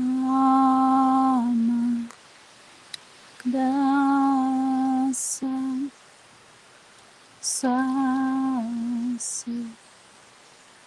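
A woman humming three long, slow notes of about two seconds each, each dropping a little in pitch at its end, with quiet pauses between them. Short breathy hisses come between the later notes.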